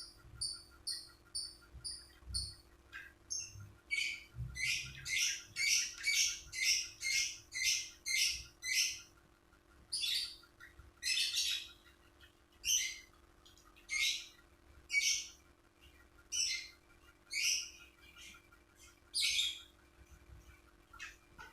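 Lovebird calling in a long run of short, shrill chirps, about two a second. The chirps begin as thin, clear notes and turn harsher about four seconds in, with a brief break near the middle.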